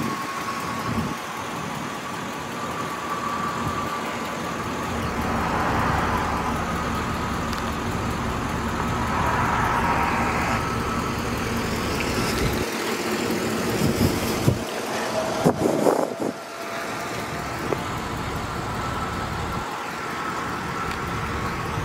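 2005 GMC Sierra 2500HD's Vortec gasoline V8 idling steadily, with a thin steady whine over the idle. A few short knocks come about two-thirds of the way through.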